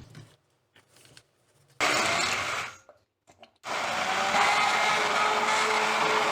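Electric blender pureeing cooked, cooled apple and plum for jam. It gives a short run of about a second, then a longer steady run from a little past halfway, its whine sinking slightly in pitch as it goes.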